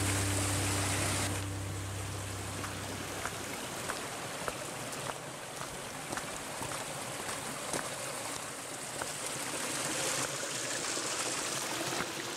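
A stream of water flowing: an even rushing with small splashes. Low music notes fade out over the first few seconds.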